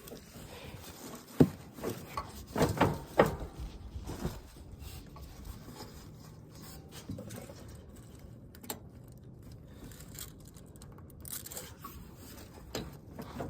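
Metal clinks, knocks and rubbing of hands working a pin loose from a riding mower's deck linkage. There is a sharp knock about a second and a half in and a quick run of clanks around three seconds, then quieter scraping and occasional clicks.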